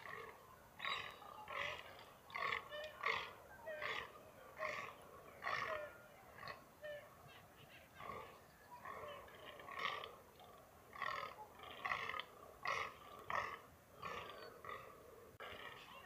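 A herd of fallow deer mewing: many short calls, overlapping and repeating one to two times a second.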